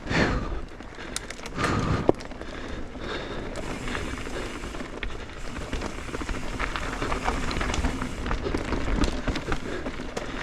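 Mountain bike ridden along a dirt trail: a steady rush of tyres on the ground and wind, with rattles and clicks from the bike over bumps and a sharp knock about two seconds in.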